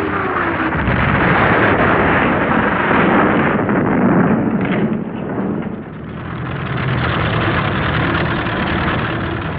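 Loud, dense battle noise of explosions and fire, a continuous rumble with a few sharper blasts; a falling whistle dies away in the first second.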